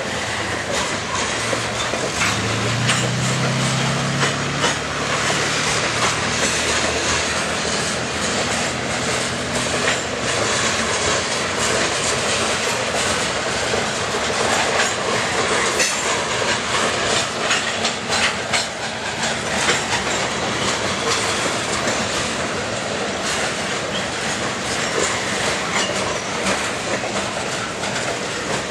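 Covered hopper cars of a freight train rolling past, their steel wheels clacking over rail joints amid steady rolling noise.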